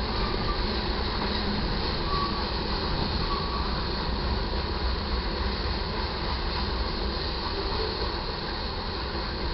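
Freight train cars rolling past on the main line: a steady, unbroken rumble of steel wheels on rail.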